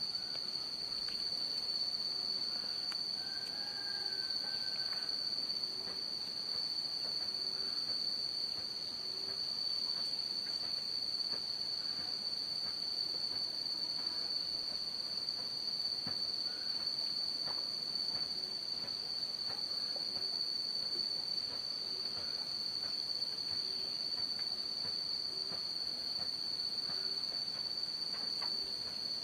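A steady, high-pitched insect chorus: one continuous shrill drone. Beneath it, faint short low calls repeat about every second and a half.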